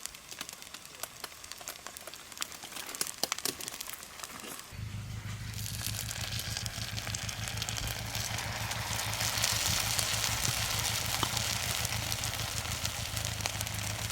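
Camp stove cooking: light crackling and clicks, then a steady hiss with a low hum that starts suddenly about five seconds in and grows louder.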